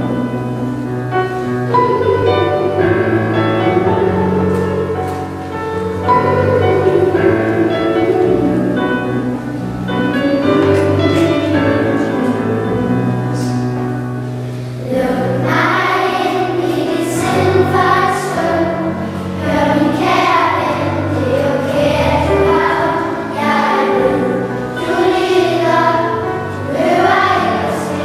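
Children's choir singing with instrumental accompaniment under it. The voices grow fuller and brighter about halfway through.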